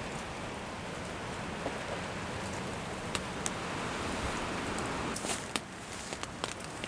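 Heavy storm rain falling steadily, a continuous hiss, with several sharp ticks of drops or knocks close to the microphone in the second half.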